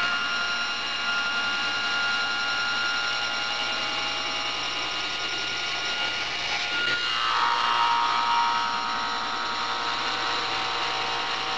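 Table saw running at speed with a 3/32-inch blade raised to full height, ripping finger kerfs into a 3/4-inch hardwood featherboard blank: a steady motor-and-blade whine over a cutting hiss. About seven seconds in the whine drops in pitch and gets a little louder as the blade takes more load in the wood.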